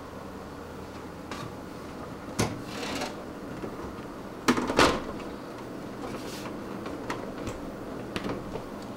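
Graphics card cooling fan running with a steady hum. Several knocks and clatters sound over it, the loudest a pair about four and a half seconds in.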